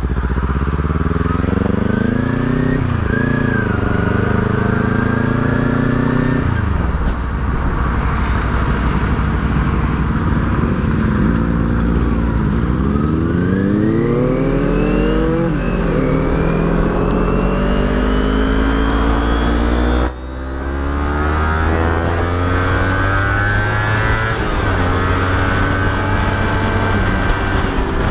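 Sport motorcycle engine accelerating through the gears. The pitch rises and falls back at each upshift, several times over.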